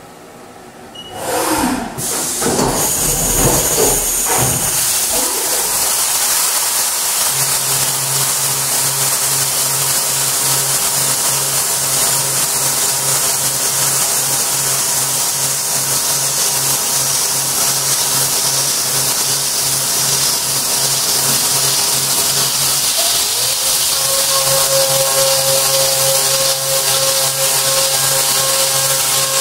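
CNC milling machine working: the spindle winds up over the first few seconds, then runs steadily under a loud, constant hiss. About 23 seconds in, the tone dips briefly and comes back with a higher whine added as the end mill cuts into the metal block and throws chips.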